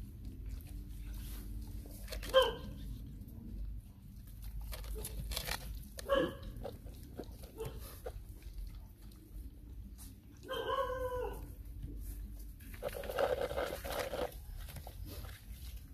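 Puppies at a shared food bowl giving short yelping calls: one about two seconds in, another about six seconds in, a longer wavering one about ten seconds in, and a rougher one near thirteen seconds.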